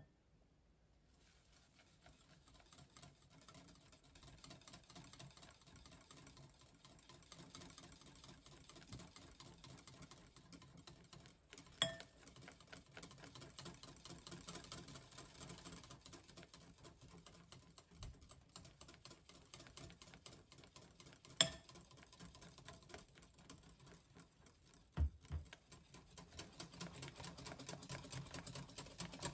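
A wire whisk beating egg, sugar and rice oil in a glass bowl until thick, with the wires clicking fast and steadily against the glass. There are two sharper ringing clinks on the bowl and a soft low thump near the end.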